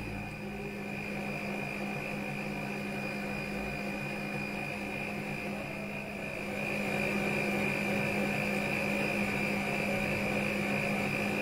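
Stand mixer running at high speed (setting 9), its wire whisk beating eggs and sugar into a thick, pale foam in a stainless steel bowl. A steady motor hum with a high whine that grows louder about two-thirds of the way through.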